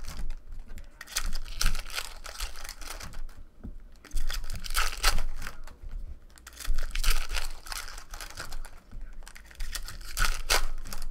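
Foil wrappers of Topps Chrome baseball card packs crinkling and tearing as the packs are ripped open, in several loud bursts a second or two apart.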